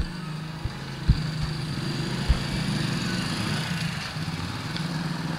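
A motor engine idling steadily, with a few dull low bumps in the first couple of seconds.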